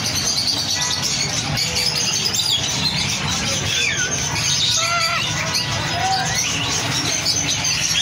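Many caged birds chirping and calling at once: a jumble of short whistled and squawking calls, several sliding up or down in pitch in the middle, over a steady background din.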